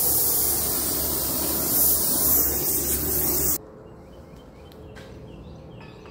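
Compressed air hissing steadily from a blow gun, cutting off suddenly about three and a half seconds in. A few faint light clicks follow.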